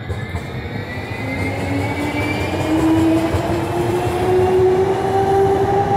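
Houston METRORail light-rail trains passing at close range: a low rumble of wheels on the rails under a steady electric whine that slowly rises in pitch, the traction motors pulling away. The sound grows louder over the first few seconds and stays loud.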